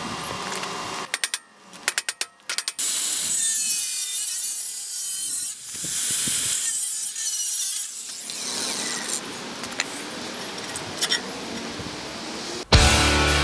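Angle grinder with a cut-off disc cutting through steel tubing in a few long passes, starting about three seconds in after a quick series of sharp clicks. Heavy rock music with guitar and drums cuts in near the end.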